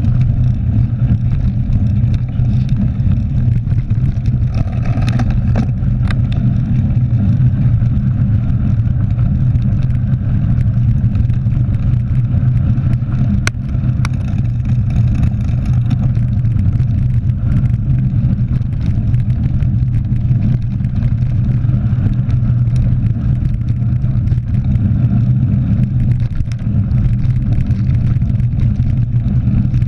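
Steady low rumble of wind on an action camera's microphone and mountain-bike tyres rolling on a gravel forest road, with a couple of sharp clicks about halfway through.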